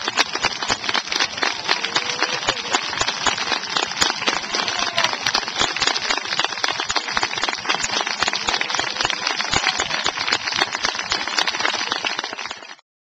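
Crowd applauding: dense, steady clapping that cuts off suddenly near the end.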